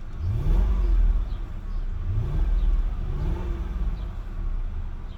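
1996 Lexus LS400's 4.0-litre V8 idling and revved with three short throttle blips, the pitch rising quickly on each before settling back to idle.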